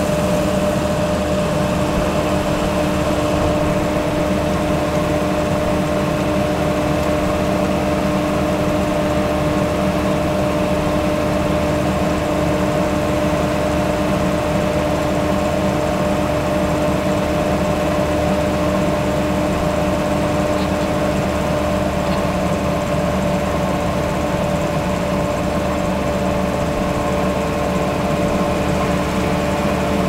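Skid steer loader running steadily under load, its engine and hydraulics driving a rotary soil loosener that spins in the ground and sprays dirt. A steady machine hum that holds one pitch, with a rushing noise over it.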